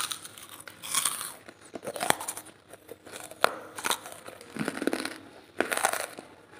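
Hard lumps of charcoal being bitten and chewed close to the microphone: a run of dry crunches about once a second, with a few sharp cracks among them.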